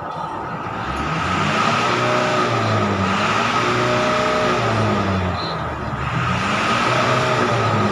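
A motor engine running close by, getting louder over the first second or two and then holding. Its pitch rises and falls back several times, as with repeated revving or a passing vehicle.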